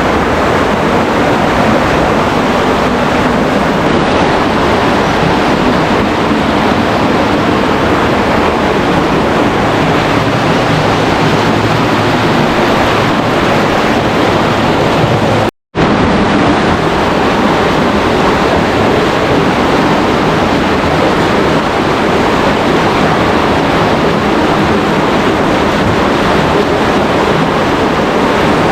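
Loud, unbroken rush of falling and flowing water from a waterfall, cut off for a split second about halfway through.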